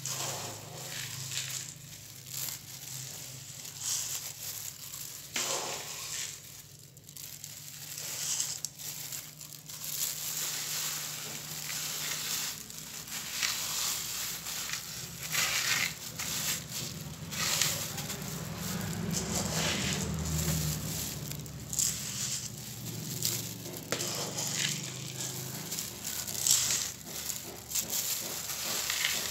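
Clay pebbles being raked and spread over potting soil by a hand in a plastic glove: irregular crunching scrapes with some crinkling of the glove.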